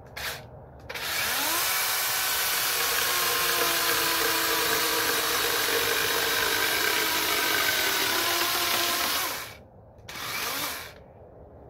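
Dewalt 20V MAX XR cordless electric chainsaw: a short blip of the chain, then the motor spins up with a rising whine and the chain cuts through an old wooden fence post for about eight seconds before stopping. A second short burst of the chain comes about ten seconds in.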